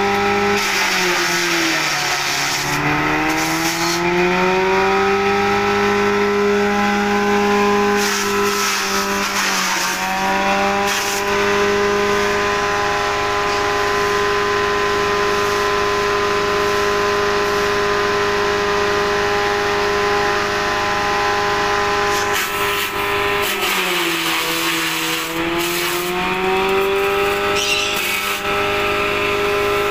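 Grass chopper driven by a 1 HP electric motor, running with a steady hum and the hiss of its blades chopping elephant grass. The pitch sags and recovers three times, about a second in, near ten seconds and towards the end, as bundles of grass are fed in and load the motor.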